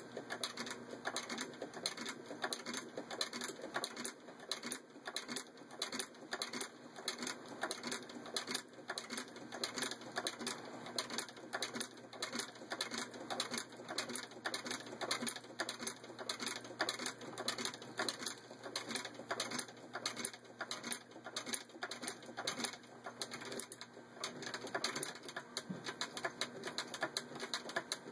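An 1871 Singer 12k treadle sewing machine stitching through denim, its needle and shuttle mechanism giving a steady, even, rhythmic clatter.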